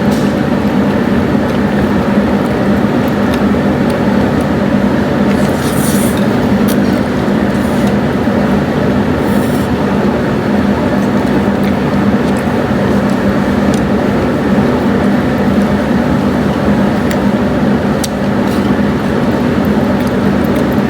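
Steady, loud rumble and road noise of a moving vehicle heard from inside it, even throughout with a few faint clicks.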